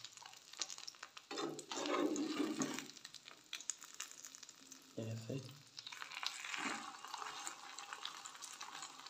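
Egg omelette frying in oil in a steel frying pan, with a steady sizzle that grows fuller in the second half. A slotted spatula scrapes and clicks against the pan as the omelette is lifted and folded.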